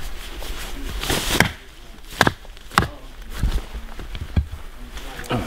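Hatchet blade striking a birch log set on a chopping stump, hewing it down: several sharp chops at irregular intervals, the loudest about one and a half seconds in.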